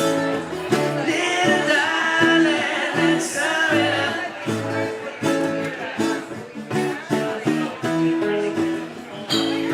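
Live acoustic guitar music with a steady, rhythmic strum, and a melody line gliding above it in the first few seconds.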